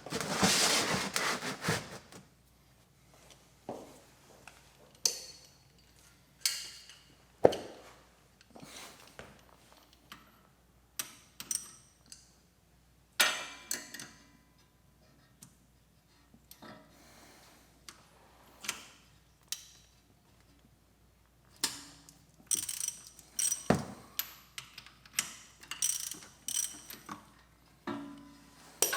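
Scattered clicks, knocks and short clinks of hand tools and metal parts being handled, like a socket ratchet and wrench working on a mower's oil drain fitting. A louder rustling burst comes at the start, and the clicks come thicker about two-thirds of the way through.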